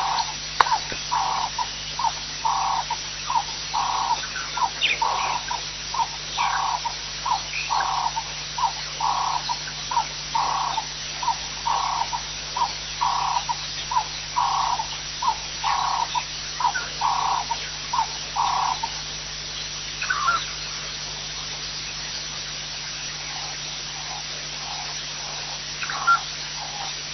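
A frog calling over and over at the waterhole: a short note repeated about every 0.8 seconds, which stops about two-thirds of the way through. A couple of brief higher calls come after, over a steady low hum.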